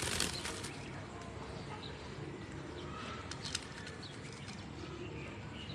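A pet parakeet bathing in water: a burst of splashing at the start, then scattered small splashes and clicks with a few faint chirps as it dips and soaks itself.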